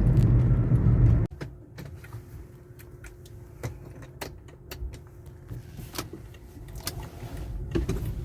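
Low rumble of a car heard from inside the cabin, which stops abruptly about a second in. It gives way to a quieter low hum with a faint steady tone and scattered small clicks and knocks.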